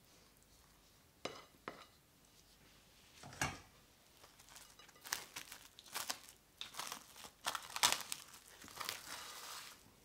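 Plastic cling wrap crinkling and crackling as it is stretched over a bowl and pressed by hand onto the surface of custard, with a louder rip of the film about a third of the way in and dense crinkling from about halfway.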